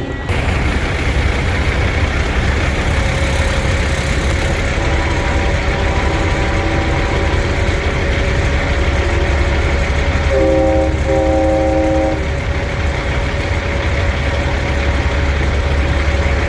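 Truck air horns sounding over a steady low engine rumble: one horn holds a single note through most of it, and a multi-note air horn chord blasts twice in quick succession about ten seconds in.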